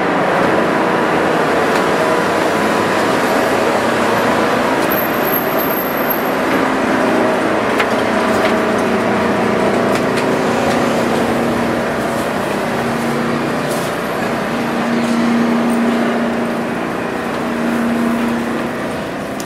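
Steady, loud drone of the ferry's engines and machinery, heard from inside the ship's stairwell; it eases off slightly near the end.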